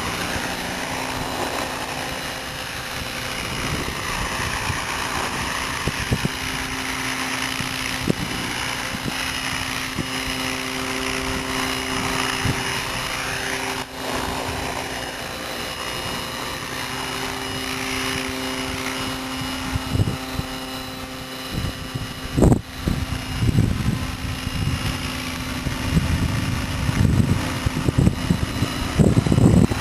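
Radio-controlled Hurricane 550 model helicopter in flight: a steady rotor and motor drone whose higher whine slowly sweeps up and down as it moves. Wind buffets the microphone in the last few seconds.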